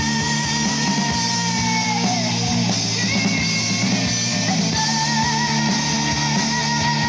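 Live rock band playing loud, with electric guitar, bass and drums. Long held high notes with a slight waver ring out over them: one slides down and drops away about two seconds in, and new ones enter about three and five seconds in.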